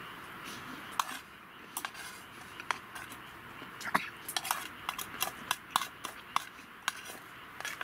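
Chopsticks clicking and scraping against a metal mess tin while the last of a meal is eaten, in a dozen or so short, irregular taps over a steady faint hiss.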